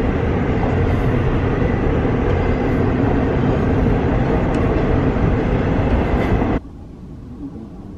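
Passing train, a loud steady rumble. It stops abruptly about six and a half seconds in, leaving a much quieter background.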